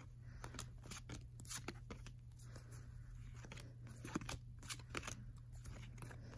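Baseball cards being slid off a handheld stack one after another: irregular soft flicks and scrapes of card against card.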